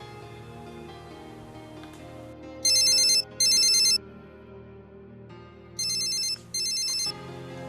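Mobile phone ringtone: an electronic ring of rapidly repeating high tones in pairs of short bursts, a loud pair a few seconds in and a quieter pair near the end, over soft background music.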